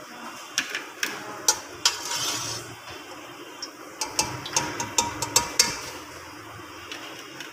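Metal slotted spoon knocking and scraping against a pan in a series of sharp clinks while fried gulab jamuns are scooped up. There is a short scrape about two seconds in and a quick run of clinks a little past the middle.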